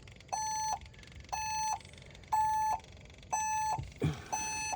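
Compact tractor's dashboard warning beeper sounding a steady repeating beep, about one short tone a second, five beeps in all, while the tractor is in a no-start condition. A short low thump sounds near the end.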